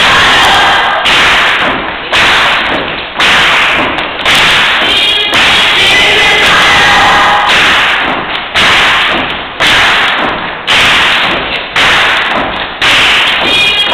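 Live gospel music with a heavy thumping beat about once a second, loud enough to overload the recording, so the sound jumps up on each beat and sags after it. The choir claps along.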